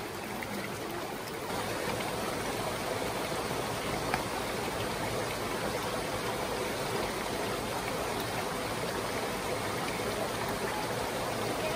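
Steady rushing of a creek's running water, with a single light tap about four seconds in.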